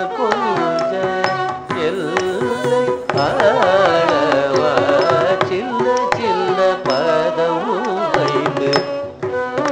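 Carnatic music in raga Kaapi, set to Adi tala: a gliding melodic line, sung or played, over regular hand-drum strokes.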